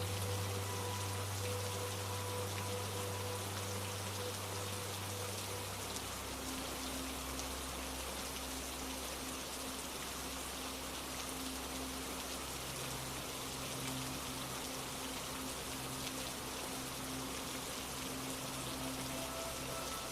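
Steady rainfall, an even hiss of drops, under soft held low tones of a relaxation drone whose notes change about six seconds in and again near twelve seconds.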